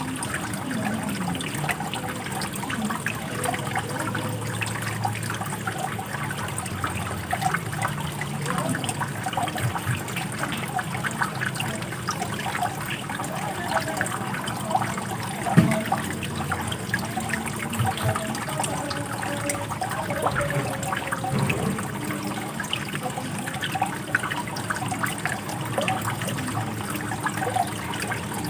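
Running water trickling and gurgling steadily, with one sharp click about halfway through.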